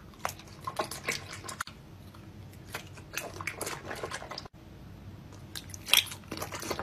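Close-up sounds of a man biting and chewing a glossy hand-shaped candy: irregular short mouth clicks and smacks, with abrupt breaks about a second and a half in and again past the middle where the clip is cut.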